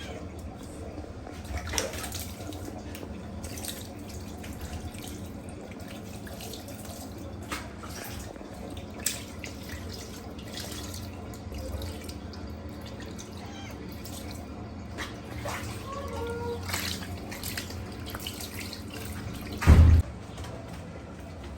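Tap water running steadily, with scattered small knocks and clicks and one loud low thump near the end.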